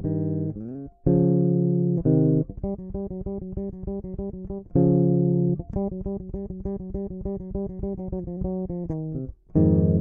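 Solo bass improvising a blues in C minor, plucked notes with no other instruments. A few longer held notes, about a second in and near the middle, sit between quick runs of short repeated notes.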